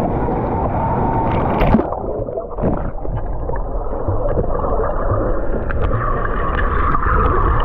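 Water rushing and gurgling close to the microphone, muffled, over a steady low rumble.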